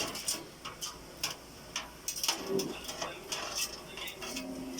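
Small, irregular clicks and clinks of computer parts and cables being handled and fitted during a PC build.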